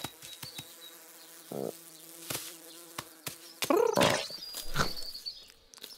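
Steady insect buzz, a cartoon fly sound effect, under scattered clicks, with a brief low croak about a second and a half in. Louder gliding cartoon-cat cries come from about two-thirds of the way through as the cat tussles with a frog.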